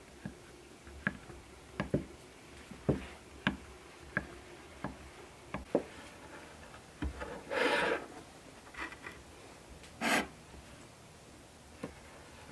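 A fork's tines pricking a pastry crust in a ceramic pie dish, a string of light taps, followed by a large kitchen knife cutting through rolled pastry against a floured work surface, two longer scraping strokes later on.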